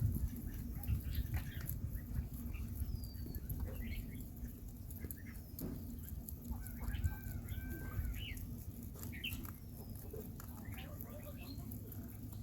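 Scattered short bird chirps and calls, several bunched together around the middle, over a steady low rumble.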